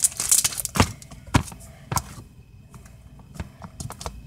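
Irregular sharp knocks and clicks from hands handling things right at the microphone, with a brief rustle near the start. The knocks come about every half second at first, then thin out and fade past the middle.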